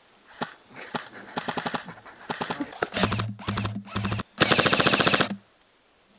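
Airsoft electric rifles firing several short full-auto bursts of rapid clacks, some with the low hum of the gearbox motor under them. The loudest and longest burst, about a second, comes near the end.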